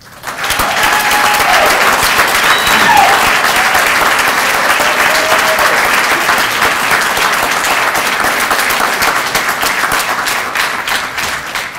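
Loud audience applause that starts suddenly, holds steady, and tapers off near the end.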